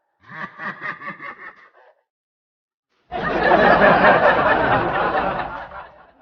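Rhythmic laughter for about two seconds. After a second of silence, a loud noisy blast of sound lasts about three seconds and fades out near the end.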